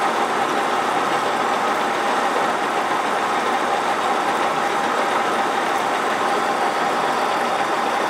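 Metal lathe running steadily while a tangential tool holder plunges about a millimetre into the turning metal workpiece. The result is a constant mechanical whir with a faint steady whine.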